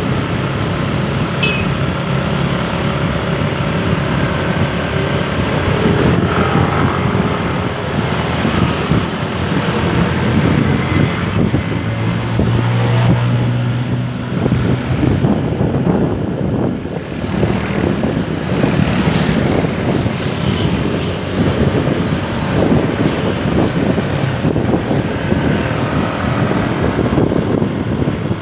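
Road traffic with vehicle engines running; a strong low drone comes in about halfway through, and the sound grows rougher and noisier in the second half.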